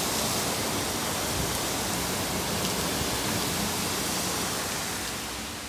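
Heavy hurricane rain pouring down, a steady hiss that eases a little near the end.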